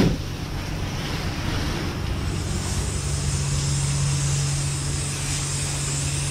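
Self-serve car wash spray wand hissing steadily as it sprays water onto the Jeep's body, a first soak to soften caked road salt before the pressure is turned up. A steady low hum joins about three seconds in.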